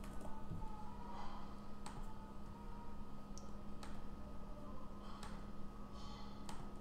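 Scattered single clicks from working a computer, a second or two apart, over a faint steady electrical hum.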